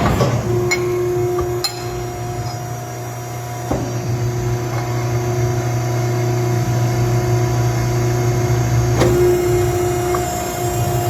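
Edwards hydraulic ironworker running with a steady hum from its pump motor, its punch station punching through steel with a heavy thump at the start, another about four seconds in and a third about nine seconds in.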